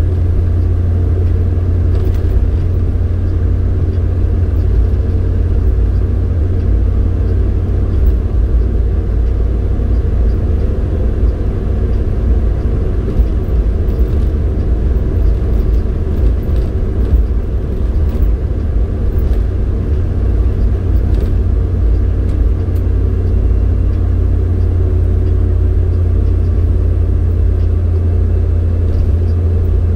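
Car driving steadily, heard from inside the cabin: an even, low rumble of engine and tyre noise.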